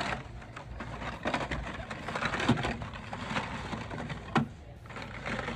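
Hot Wheels blister-card packages being rummaged through in a cardboard display bin: plastic and card rustling and knocking together, with two sharper clicks, one about halfway through and another near the end.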